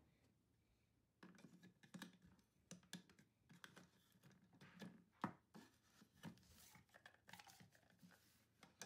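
Faint, irregular plastic clicks and short scrapes from a Play-Doh toy barber chair being twisted on its ribbed plastic column and handled, starting about a second in.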